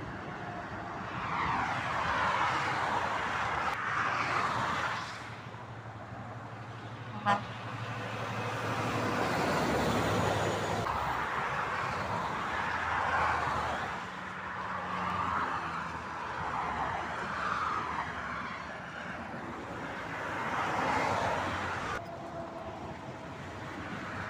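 Motorway traffic: vehicles passing one after another, each one a swell of tyre and wind noise that rises and fades. There is one brief sharp tick about seven seconds in.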